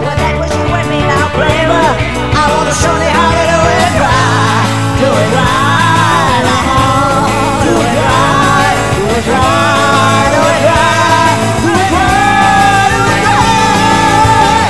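Rock song with a full band and a singing voice that holds long, gliding notes.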